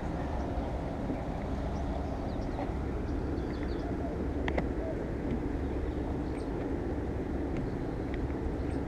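Steady outdoor background hum, with faint bird chirps and one sharp click about four and a half seconds in.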